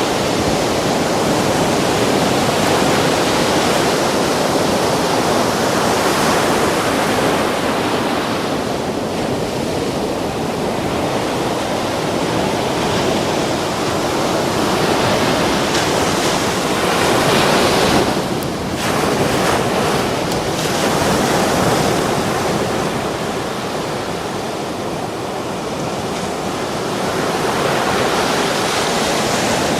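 Sea surf: waves breaking and washing in continuously, the loudness swelling and easing over several seconds.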